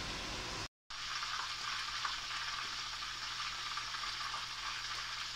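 Purple yam soup coming to the boil inside an Instant Pot Ace Plus heated blender jar: a steady sizzling hiss over a faint low hum from the appliance. A short cut less than a second in breaks off a lower rushing noise.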